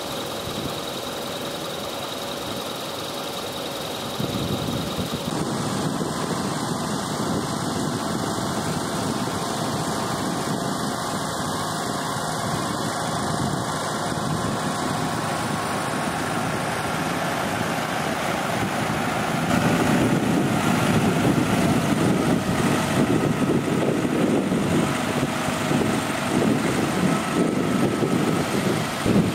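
Tractor engine running steadily as it pushes a dive boat down the beach into the surf, getting louder about two-thirds of the way through.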